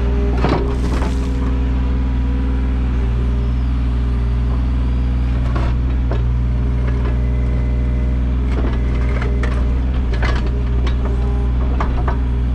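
Kubota U55-4 mini excavator's diesel engine running at a steady pitch, with scattered knocks and scrapes from the bucket digging in soil and stone.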